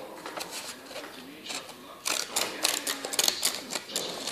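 Child's decorative-edge craft scissors cutting paper: a quick run of crisp snips and paper crinkles starting about two seconds in.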